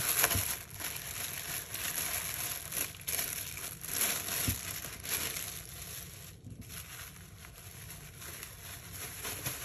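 Plastic bubble-wrap pouch crinkling and rustling as it is handled and opened by hand, with many small crackles. It is louder over the first several seconds and softer from about six seconds in.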